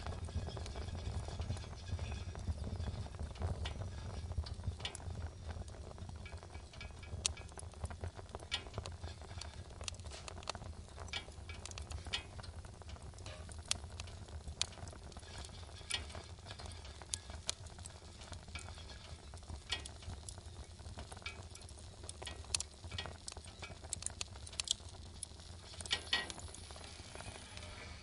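Fire crackling inside an open stove: irregular sharp pops and snaps over a steady low rumble.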